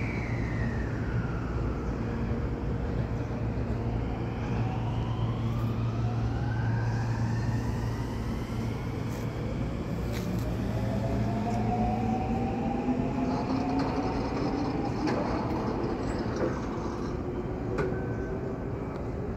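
Electric train accelerating away, its motor whine rising slowly in pitch for about ten seconds over a steady low hum. A short falling whine comes in the first two seconds.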